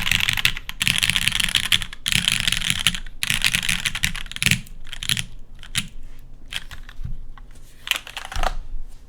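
Typing on a custom mechanical keyboard with lubed Cherry MX Black linear switches in an aluminum plate, under GMK keycaps. Fast, continuous key clacks for the first half, then slower, scattered keystrokes with a short quick cluster about eight seconds in.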